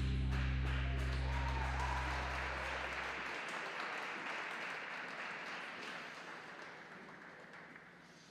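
Audience applauding and slowly fading away, while the last low note of the skating music rings on and dies out about three seconds in.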